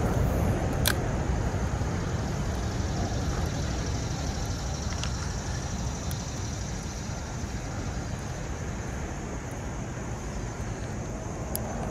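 Steady low rushing outdoor background of running creek water and road traffic, easing slightly, with a sharp click about a second in as the spinning rod is cast.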